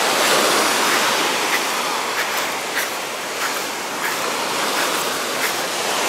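Small sea waves breaking and washing up a sand-and-pebble shore, a steady surf noise.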